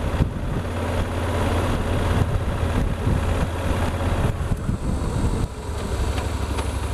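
Yamaha Super Ténéré's parallel-twin engine running at town speed with wind and road noise, heard from the rider's helmet. About five and a half seconds in the sound drops briefly and the engine settles into a lower, even pulse as the bike slows off the throttle.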